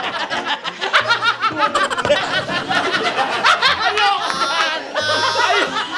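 Several people laughing and shrieking together, over background music with a low bass line.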